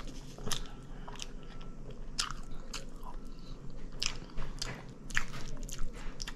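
A person chewing country-style pork ribs close to the microphone, with sharp, wet mouth smacks and clicks at irregular intervals, about one a second.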